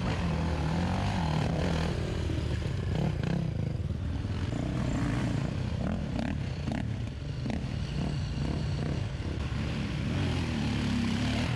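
Enduro dirt bike engines running and revving, their pitch rising and falling, with a few short knocks in the middle.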